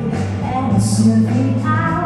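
Loud amplified pop song from a stage show: a steady bass line and held pitched notes with a singing voice.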